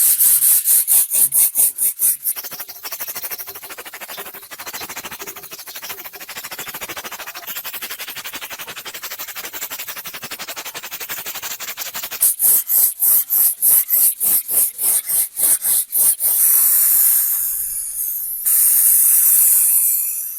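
Metal being scrubbed by hand with an abrasive in fast back-and-forth rubbing strokes, about four or five a second. The strokes are loudest at the start and again from about twelve seconds, lighter and quicker in between, and turn into a steadier scraping hiss near the end.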